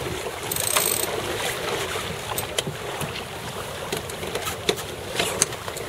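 Wind and water rushing past a racing sailboat under sail, with scattered sharp clicks and knocks from deck gear as the crew trims sheets.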